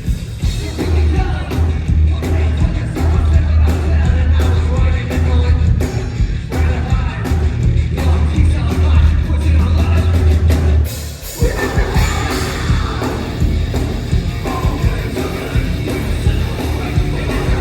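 A loud live rock band playing with a singer's vocals over heavy, steady bass; the band drops out for a moment about eleven seconds in, then comes back in.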